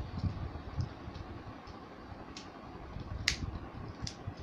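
Plastic Transformers Combiner Force toy figures being handled and fitted together: a few sharp plastic clicks, the loudest about three seconds in, over soft handling knocks.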